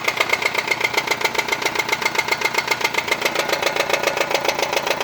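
Nissan Sunny car engine idling with a fast, even tak-tak tapping from inside the engine. The engine is not misfiring, and the mechanic takes it for an internal mechanical noise.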